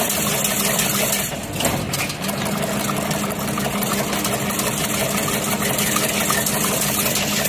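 Automatic chain link fence weaving machine running with a steady motor hum, the hum dropping away briefly about a second and a half in and then resuming.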